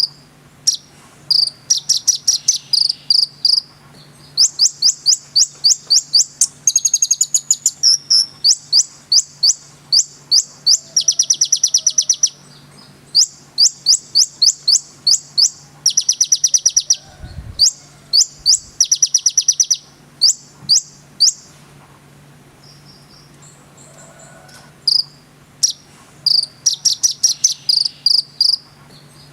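Konin songbird singing: rapid trills of sharp, high notes delivered in series after series with short pauses between them. A faint steady low hum lies underneath.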